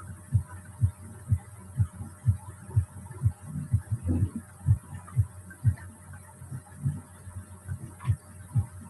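Low, dull thumps repeating about twice a second over a faint steady hum.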